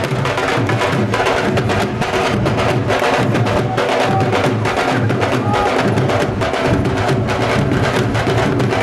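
Dhol drums played at a fast bhangra rhythm: rapid, sharp strokes of the thin cane stick over the deep bass head.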